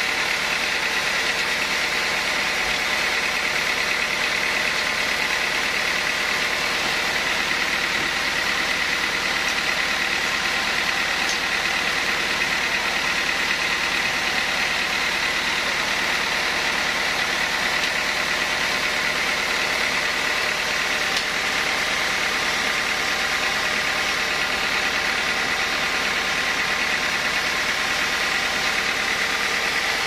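Band sawmill running steadily with no load, a constant mechanical drone with a steady high whine and no cutting in progress.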